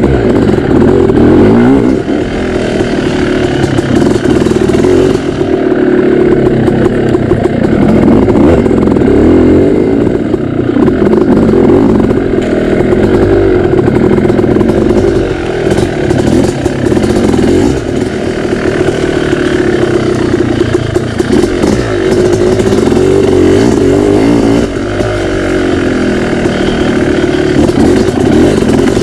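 Dirt bike engine running hard, its pitch rising and falling over and over as the throttle is worked along a twisting trail, with some rattling from the bike over rough ground.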